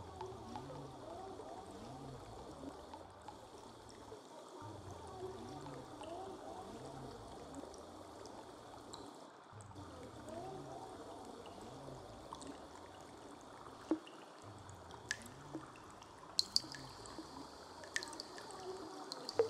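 Trickling, gurgling stream water in an ambient soundtrack, over a low pulsing drone that repeats in phrases about every five seconds. A few sharp drip-like clicks come in the last few seconds.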